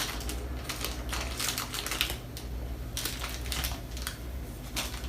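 Irregular clicks and taps in uneven runs over a steady low hum.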